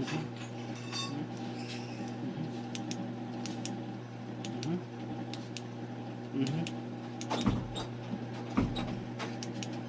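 A steady low electrical hum, with scattered small clicks and two heavier knocks about seven and a half and eight and a half seconds in.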